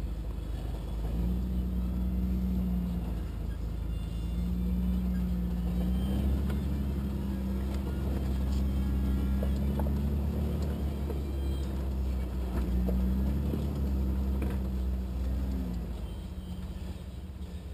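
A rock-crawling 4x4's engine running at low revs under load, a steady low rumble whose pitch rises and falls slightly with the throttle, easing off near the end.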